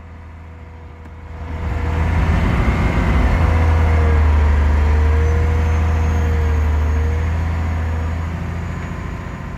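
Wheel loader's diesel engine, heard from inside the cab, revving up about a second and a half in and running hard with a deep rumble and a whine that wavers in pitch, then slowly easing off toward the end.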